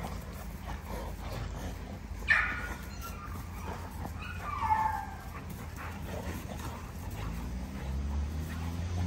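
American bully dogs play-fighting, with a sharp yelp about two seconds in and a falling whine a couple of seconds later. A low steady hum comes in near the end.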